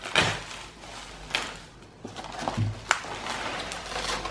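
Bubble wrap crinkling and rustling against cardboard as wrapped parts are slid out of a box and set down, with a few sharp clicks and a soft knock.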